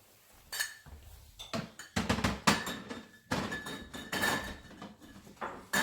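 Hard parts being handled and set back in place in a refrigerator: a series of irregular clattering knocks and rattles, several with a short ringing clink, the busiest stretch about two to four and a half seconds in.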